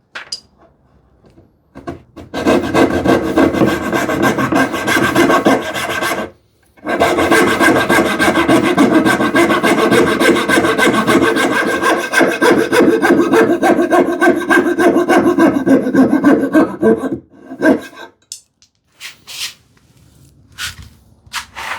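Coping saw cutting out the waste between dovetails in wood, a fast rasping run of strokes. It breaks off briefly about six seconds in, resumes and stops about seventeen seconds in, followed by a few scattered light knocks.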